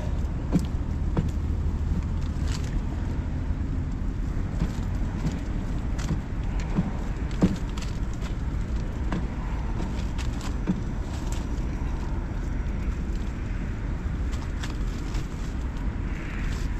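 Steady low wind rumble against the ice-fishing tent and the microphone, with a scattered handful of faint clicks.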